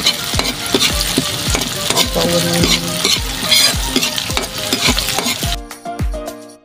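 Chopped chilies and garlic sizzling in hot oil in a wok while being stirred with a metal spatula. A steady low beat runs underneath, and the sizzle cuts off suddenly about five and a half seconds in.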